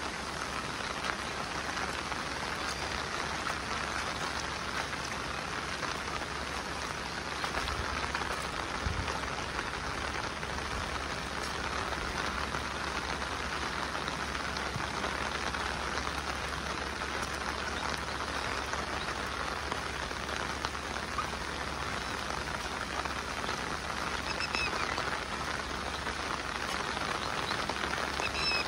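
Steady monsoon rain falling, an even, unbroken patter, with a few short high chirps near the end.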